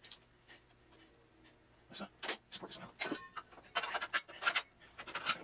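A man breathing hard in short noisy breaths and puffs, starting about two seconds in, as he strains to hold and position a heavy clay figure.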